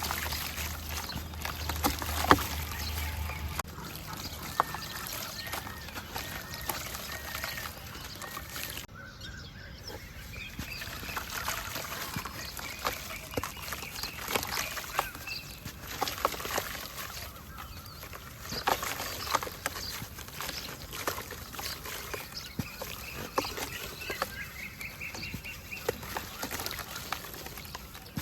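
Chunks of dry red dirt dipped in water and crumbling, giving many small crackles and pops along with trickling water.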